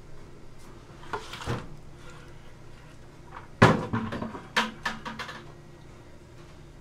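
A whole red sea bream tipped from a plastic tub lands on a plastic cutting board with one heavy thud, followed by a few lighter knocks and clatters. A softer scrape comes before the thud.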